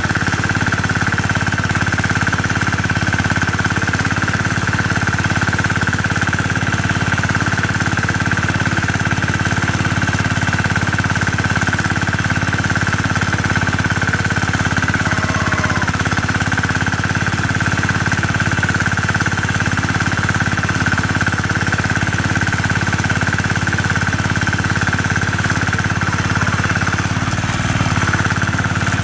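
Massey Ferguson garden tractor's engine running at a steady speed under load as it drives through snow, with a rattly chug and a steady high whine over it.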